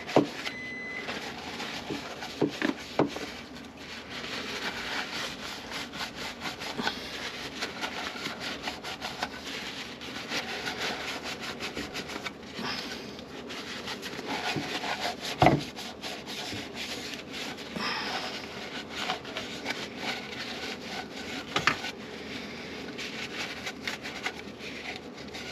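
Continuous hand scrubbing and scraping at leftover gunk on a sealing surface of the garbage disposal mount, cleaning it so the new seal seats. A few sharp knocks come through, the loudest about halfway.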